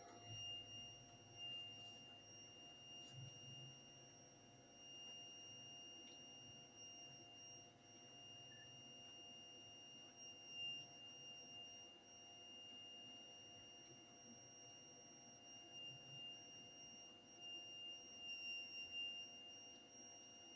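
Faint, steady high-pitched electronic whine, one unwavering tone with fainter lower tones beneath it, the weird sound the device is making.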